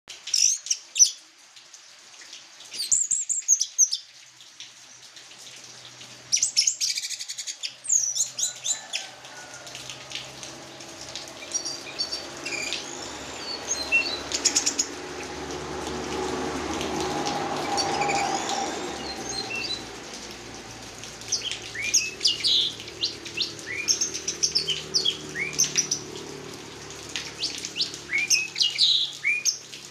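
Orange-headed thrush singing in short bursts of high, quick, varied whistles and chirps, over a steady low hum.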